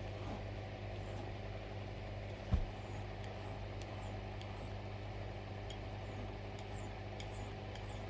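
A steady low mechanical hum, with one dull thump about two and a half seconds in.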